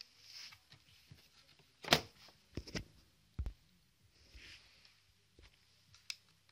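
Handling noises: a sharp knock about two seconds in, a couple of smaller clicks and a low thump within the next second and a half, and another click near the end, with faint rustling in between.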